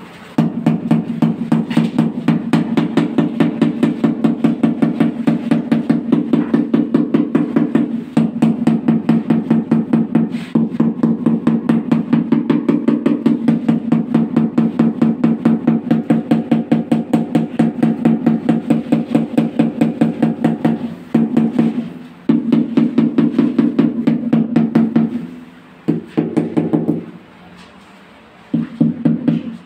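Rubber mallet tapping rapidly on a large floor tile, several blows a second, to bed it level into the cement mortar beneath. Each blow gives a hollow, drum-like thud. The tapping stops briefly a few times near the end.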